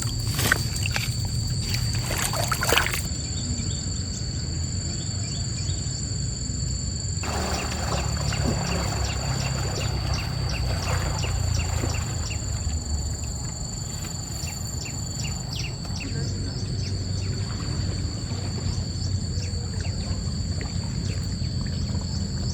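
Insects droning steadily in two high, even tones over a low, steady rushing noise, with a few sharp knocks in the first three seconds.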